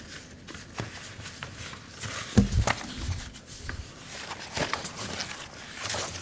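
Sheets of paper rustling and crackling as they are handled and turned close to the lectern microphones, with a soft knock about two and a half seconds in.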